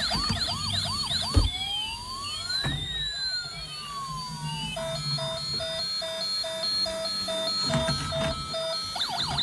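Electronic siren of a toy emergency vehicle cycling through its patterns: a fast warbling yelp, then a slow rising and falling wail from about a second and a half in, then a steady beep about three times a second from about five seconds in, with the fast yelp returning near the end. A few short knocks, the loudest as the first pattern ends.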